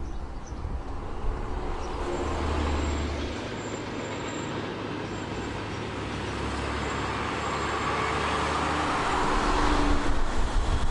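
Abarth 500C's 1.4-litre turbocharged four-cylinder engine running as the car drives along a road, with tyre and road noise. It gets louder near the end.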